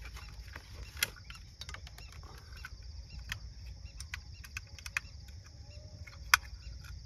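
Scattered sharp clicks and knocks as a portable gas stove is set up, the loudest about six seconds in. Crickets chirp steadily behind.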